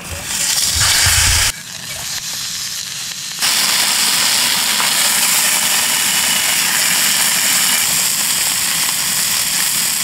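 Sous-vide beef chuck flap steak sizzling in hot avocado oil in a frying pan as its outside is seared. The sizzle drops off for a couple of seconds about a second and a half in, then comes back loud and holds steady.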